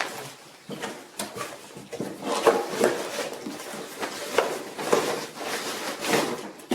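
Irregular clicks, knocks and clatter of hard objects being handled, with no steady motor or hammering.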